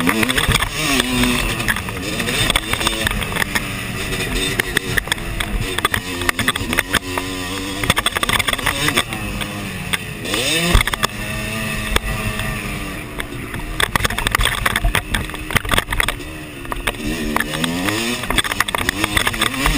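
Motocross dirt bike engine being ridden hard, its pitch rising and falling again and again with the throttle and gear changes, a sharp upward rev about ten seconds in. Heard from a camera mounted on the bike, with a rushing noise over it and scattered knocks from the rough track.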